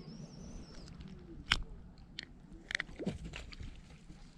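A few faint, sharp clicks and taps over a low background hum. The strongest comes about one and a half seconds in and a small cluster follows around three seconds: handling noise close to the microphone.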